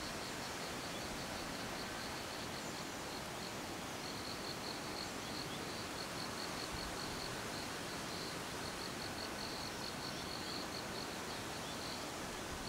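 Tropical forest ambience: insects chirring in a fast, steady, high-pitched pulse over an even background hiss.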